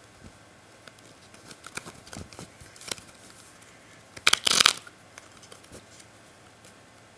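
A deck of playing cards being handled in the hands: soft scattered card clicks, then a quick loud riffle of the cards a little past four seconds in.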